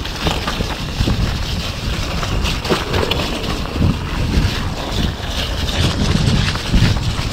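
Wind rushing over an action camera's microphone as a steel-framed mountain bike descends a muddy singletrack, with tyre noise and frequent short clicks and knocks from the bike over bumps.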